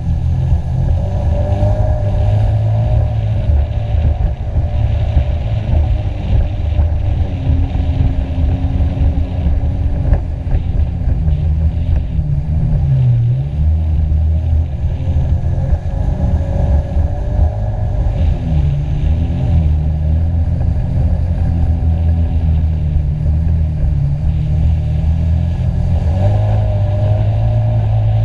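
Jet ski engine running hard at speed, its pitch wavering slightly with the throttle. About halfway through the pitch dips briefly, then comes back up.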